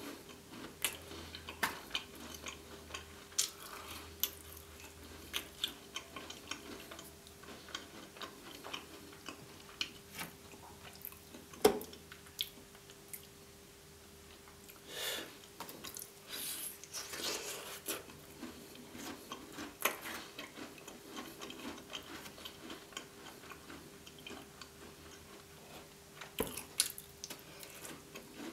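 Close-miked chewing and crunching of gingerbread, a string of small crisp crunches and mouth clicks, over a faint steady hum. About halfway through, custard is poured from a carton onto a piece of gingerbread, a brief soft splashy pour.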